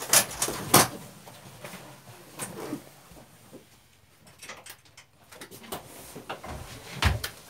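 A few knocks and thumps as a person climbs into and settles in a small boat cabin, the two loudest within the first second and another near the end.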